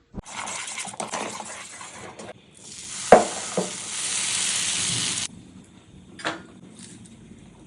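Food sizzling in hot oil in a pan, in two spells that start and stop abruptly. A sharp utensil knock about three seconds in is the loudest moment, with a lighter knock just after and another near the end.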